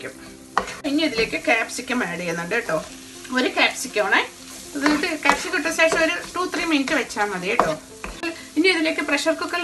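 A spatula scraping and stirring thick onion-tomato masala in a nonstick frying pan, in repeated strokes with a pitched, squeaky edge, over a sizzle of frying. It goes briefly quieter about three seconds in, when diced capsicum is added, then the stirring resumes.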